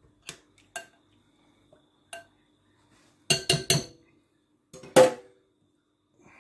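Utensil clinking against a glass mixing bowl while marinated pieces are stirred: a few light taps, then a quick run of three louder clinks, and the loudest clink, with a short ring, near the end.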